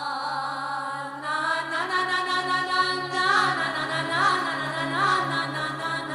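Background music: a chanted, sung vocal line over a steady low drone.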